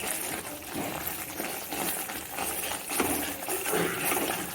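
Spatula stirring thick, sticky pumpkin halwa in a pan, where the sugar has melted into the cooking pumpkin: steady wet scraping and squelching with small clicks against the pan.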